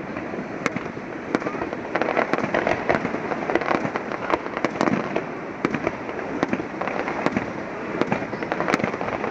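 Fireworks display going off: a dense run of sharp bangs and crackles from bursting shells, irregular throughout, over a steady noisy background.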